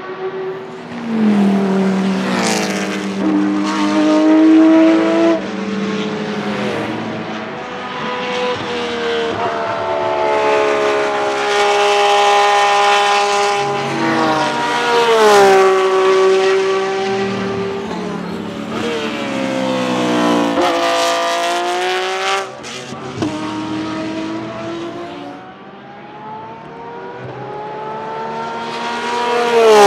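Porsche GT3-class race cars' naturally aspirated flat-six engines, unmuffled, passing the trackside at racing speed. The revs fall and climb through gear changes, peak loud in the middle as a car goes by, drop sharply, and rise again near the end as another car approaches.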